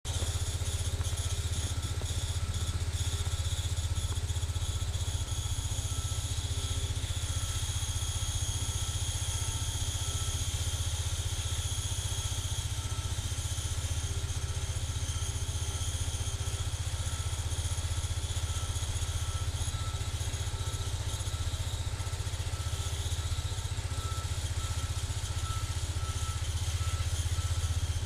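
Cub Cadet 149 garden tractor's single-cylinder Kohler engine running steadily, without any change in speed.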